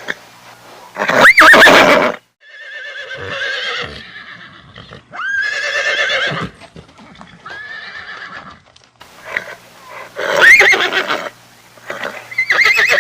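A horse neighing repeatedly: about six separate whinnies, several opening with a rising squeal and going on in a quavering trill. The loudest are about a second in and about ten seconds in.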